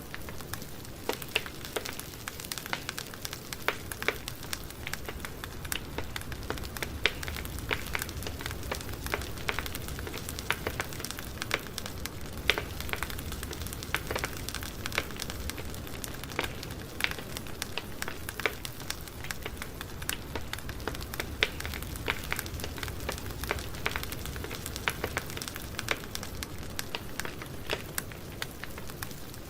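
Campfire burning, with an even hiss and frequent sharp irregular crackles and pops from the burning wood.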